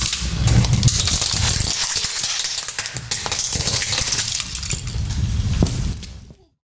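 A car tyre rolling over a hard plastic ladybug toy car on concrete, the plastic cracking and crunching in many small snaps and clicks over the low rumble of the tyre on the gritty ground. The sound fades out just before the end.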